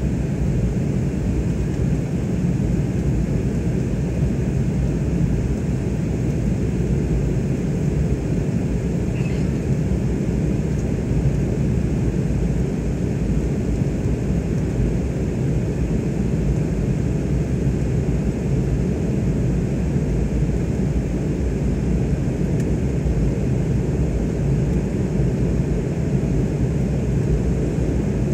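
Steady cabin noise of an airliner climbing after takeoff: engine and airflow rumble heard from inside the cabin, even and low-pitched throughout.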